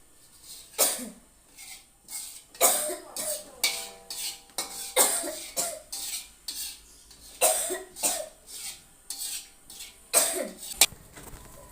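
A person coughing in a long fit, about seventeen harsh coughs in clusters of two to four.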